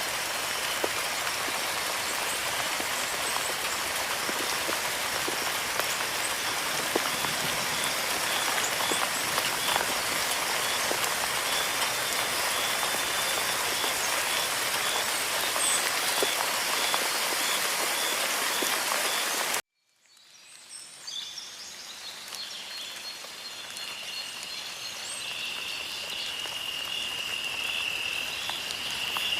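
Steady rain falling, an even hiss that cuts off abruptly about two-thirds of the way through. After a brief silence, a high, pulsing animal chorus fades in and grows louder towards the end.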